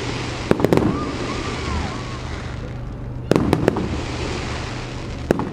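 Aerial fireworks bursting: a quick volley of several sharp bangs about half a second in, and another volley a little after three seconds, with a steady outdoor hubbub between.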